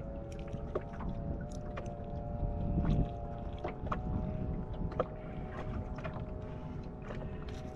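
Wind and water against a bass boat, a low rumble that swells briefly about three seconds in, over a steady high whine, with scattered small clicks and knocks.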